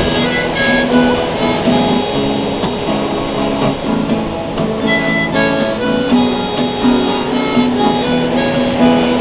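Instrumental break in a song: a harmonica melody of held notes over strummed acoustic guitar.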